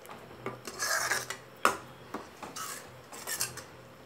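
A ladle scraping against the inside of a steel pot as thick gravy is scooped out: several short scrapes, with a sharp clink about one and a half seconds in.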